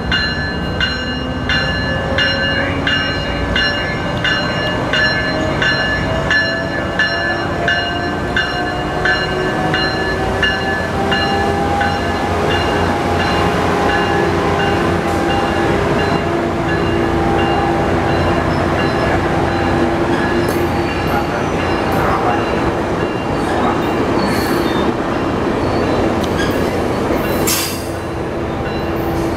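Tri-Rail diesel commuter train pulling out of a station. A bell rings about twice a second and fades out over the first ten seconds, while a whine from the locomotive rises slowly in pitch as it accelerates. The bilevel coaches then roll past with clicks and short high wheel squeals.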